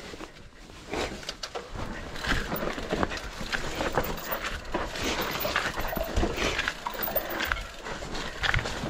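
GT Sanction enduro mountain bike descending a rough dirt and rock trail, heard from a chest-mounted camera: tyres crunching over the ground with many irregular knocks and rattles from the bike.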